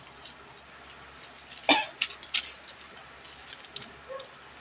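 Coins clicking against one another as they are picked up and stacked in small piles for counting, many light separate clicks, with one louder short sound about a second and a half in.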